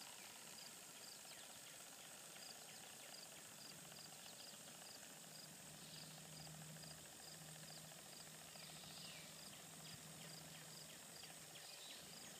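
Near silence: quiet outdoor ambience with a faint high chirp repeating about twice a second and a faint low hum from about four seconds in until near the end.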